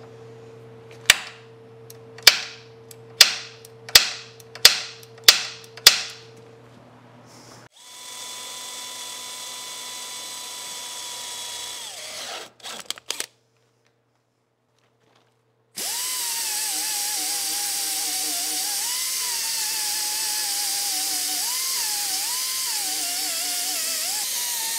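About seven sharp knocks, coming faster and faster, then a cordless drill runs steadily for a few seconds and spins down. After a short silent gap, a power tool runs continuously with a whine that wavers up and down in pitch.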